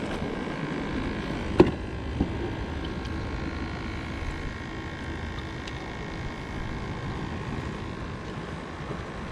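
Steady whine of a small battery-powered aerator pump on a live-bait bucket, over wind and surf noise. A sharp knock comes about a second and a half in, with a lighter one just after, as the bucket's lid is opened.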